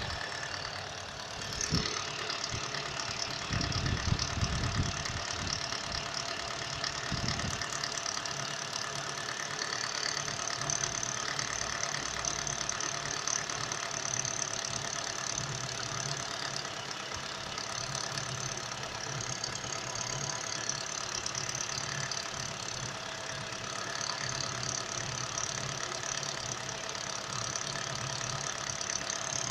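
Nissan X-Trail engine idling steadily with a knocking noise (стук) in it, the fault the recording is made to show. A few low thuds come in the first several seconds.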